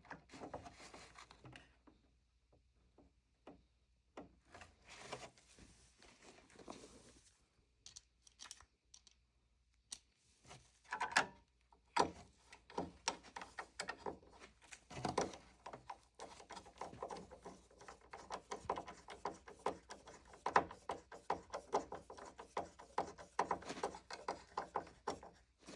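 Faint, scattered clicks and taps of hands and tools handling the replacement treadmill motor controller board and its fittings, sparse at first and turning busy and continuous about halfway through.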